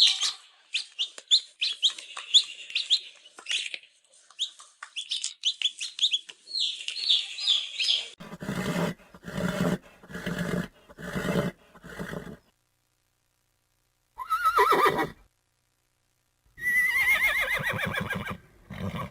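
A sequence of animal calls. Birds chirp rapidly for about eight seconds, then come about six short, harsh calls in a row, then a horse whinnies twice near the end.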